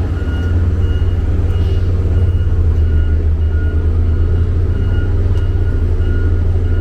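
Heavy road-construction machine's diesel engine running steadily under a loud low drone, with its reversing alarm beeping evenly, a little under two beeps a second.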